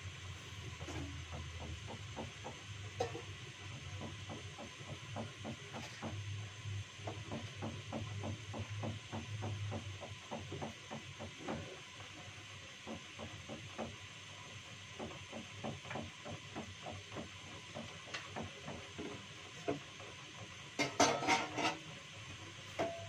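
Pot of beef and vegetable soup bubbling on a gas burner: a run of soft, fairly even ticking pops over a steady low hum. A brief burst of louder clatter comes near the end.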